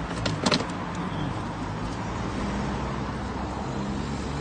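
Steady street noise with a low car-engine hum, and two or three sharp knocks about half a second in.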